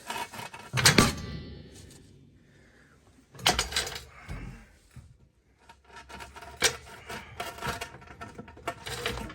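Heavy steel parts clanking and knocking as they are handled and set down, the first clank ringing briefly, followed by a run of lighter metal clatter.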